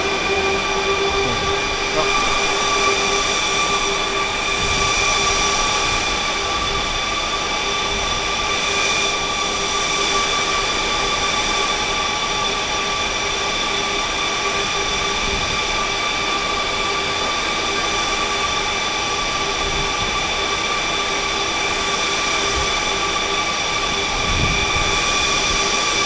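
Older resistive load banks' cooling fans running loud and steady: a whine of several high pitches over a rush of air, as the banks put a simulated full load on the diesel generator.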